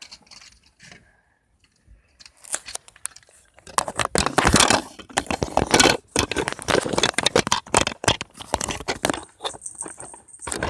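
Handling noise: rapid, irregular clattering and scraping of plastic Lego pieces, busiest from about four seconds in, with a faint high whine near the end.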